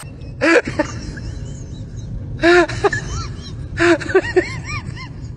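A puppy yelping and whining: three louder short yelps, about half a second, two and a half and four seconds in, with short high whimpers between and after them, over a steady low hum.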